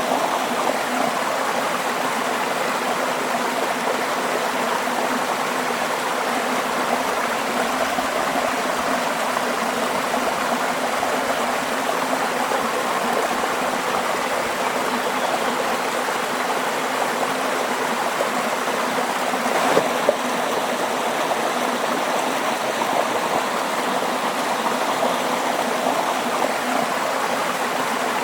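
Stream water flowing steadily, with one short louder blip about two-thirds of the way through.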